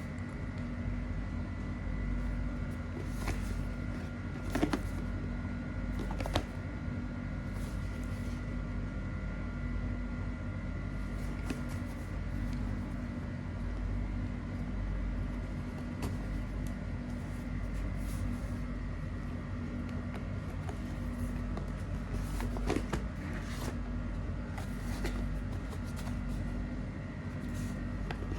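A steady low hum with a few steady tones runs throughout, and a few sharp clicks and taps from handling the phone's packaging stand out, the loudest at about four and a half and six and a half seconds and another near twenty-three seconds.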